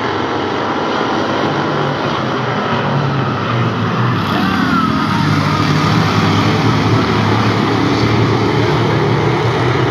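Pack of hobby stock race cars running at speed on an oval track, their engines loud and steady, growing louder about four seconds in as the field comes past.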